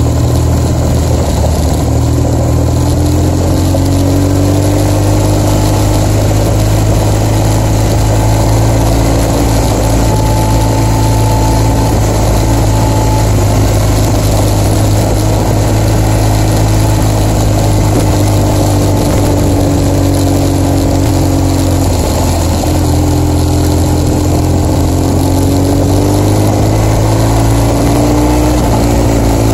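BMW R1200GS's flat-twin boxer engine running while riding along, its pitch rising and falling slightly with the throttle, over a steady rush of wind and road noise.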